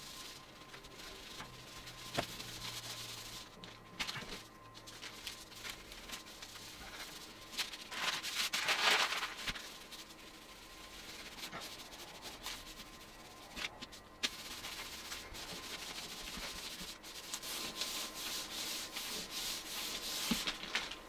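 Cloth rag scrubbing back and forth over a spray-painted walnut rifle stock, wiping off softened paint and paint stripper, in irregular strokes with a few light clicks; the rubbing is loudest about eight to nine seconds in.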